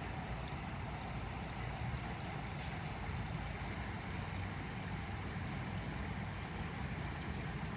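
Steady outdoor background noise: a continuous low rumble with a faint hiss above it and no distinct events.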